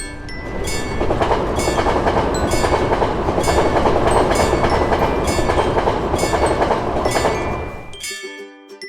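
A train passes loudly through a level crossing while the crossing's warning bell rings about twice a second. The train noise cuts off abruptly near the end, leaving the bell's chiming tones.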